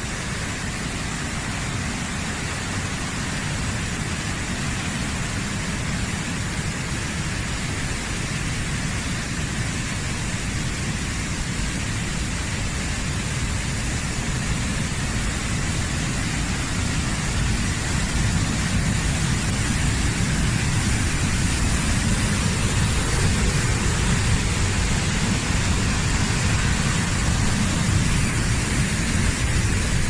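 Mountain stream torrent rushing over boulders: a steady hiss and rumble of white water that grows gradually louder through the second half.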